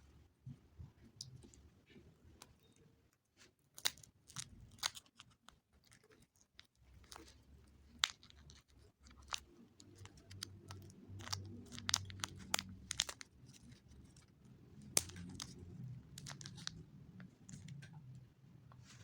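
Plastic wrapping of chicken sausages crinkling and tearing as it is peeled open, with scattered sharp crackles throughout.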